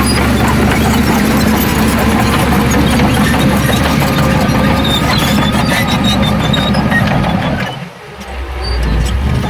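Heavy diesel earthmoving machinery running steadily, with scattered metallic squeaks and clanks. The sound drops away sharply for about a second near the end, then comes back.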